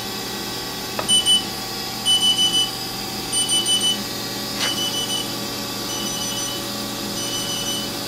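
Short groups of three or four quick, high beeps from the Haas SL30T CNC lathe's control, repeating about every second while the tailstock is jogged, over the steady hum of the running machine.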